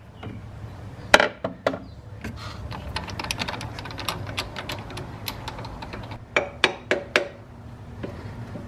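Hand tools clicking and clanking on metal at the crankshaft pulley of a Subaru 2.5L engine as the freshly loosened pulley bolt is worked out: a few sharp clicks, then a run of quick light ticks, then several louder clanks near the end, over a steady low hum.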